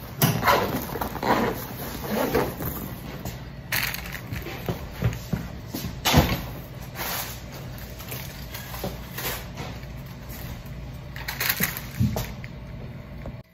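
Household handling noises: irregular knocks, taps and rustling, with a steady low hum underneath. The sound cuts off suddenly near the end.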